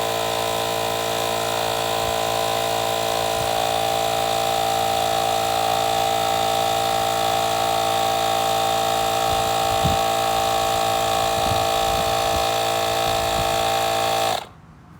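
Cordless portable tire inflator's electric compressor running with a steady buzzing hum, then cutting off suddenly near the end.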